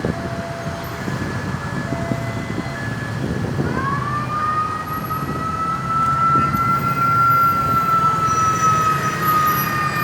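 Emergency vehicle siren starting up about three and a half seconds in, winding up into one long, slow wail that drifts gently back down and grows louder, over a steady rumble of traffic. Before it, short steady tones sound on and off.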